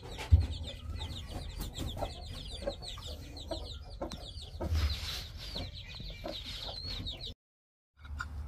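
Baby chicks peeping rapidly and continuously, high-pitched, with a hen's lower clucks underneath and a single thump about half a second in. The sound cuts out suddenly a little over seven seconds in.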